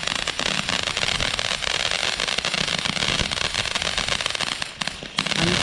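Consumer fireworks crackling: a dense, rapid stream of small pops over a hiss, with a brief lull near the end.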